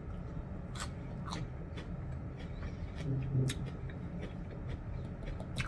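Mouth-made chewing and lip-smacking sounds of a mock mukbang: a string of sharp, irregular wet clicks, roughly two a second, with a brief low hum about three seconds in.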